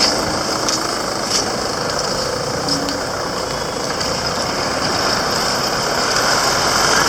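Street traffic: vehicle engines running and idling in a steady wash of noise, with a few faint short clicks.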